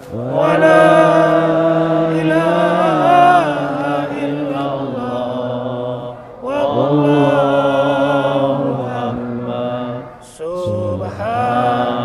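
A congregation of men chanting Islamic dhikr together in long, drawn-out phrases, with short breaths between phrases about six and ten seconds in.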